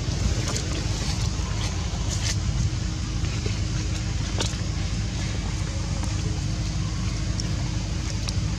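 Steady low rumble and hiss of outdoor background noise, with a faint constant hum and a few faint clicks.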